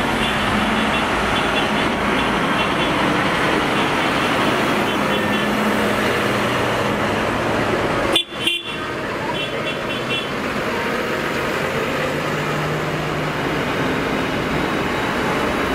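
Diesel engines of a slow-moving convoy, a van and then a blue New Holland tractor, running close by, with vehicle horns tooting in short bursts. A sharp bang and a brief dip in the sound come about eight seconds in.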